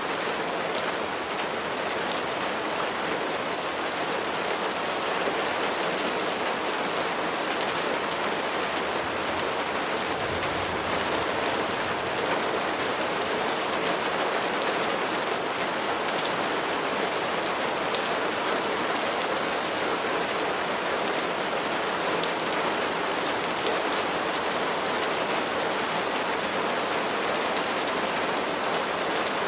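Steady rain falling, an even hiss of many drops that holds without let-up.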